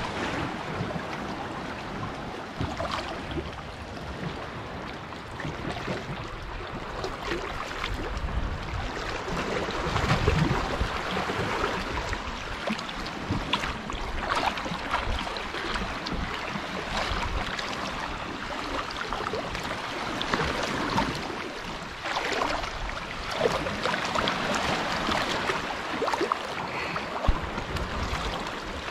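Seawater sloshing and splashing close by, in uneven surges.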